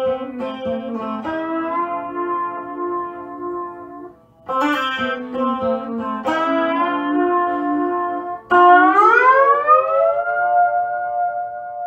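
Homemade electric lap steel guitar tuned to C6, played with a steel bar in a short Hawaiian turnaround: picked notes and chords. Near the end a chord slides up into pitch and is left ringing.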